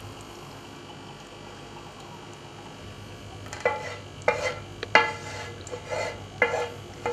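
Thick white sauce being scraped out of a metal saucepan into a glass dish with a wooden spoon; from about three and a half seconds in, the spoon knocks against the pan about eight times, each knock ringing briefly.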